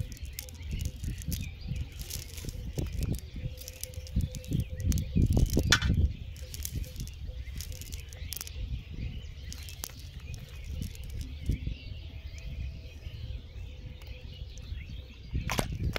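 Rustling, crackling and small knocks of a fishing net being pulled apart by hand on the ground, loudest about five seconds in, with faint bird chirps behind.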